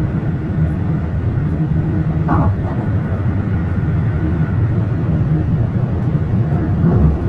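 Car driving at highway speed: a steady low rumble of tyre and engine noise.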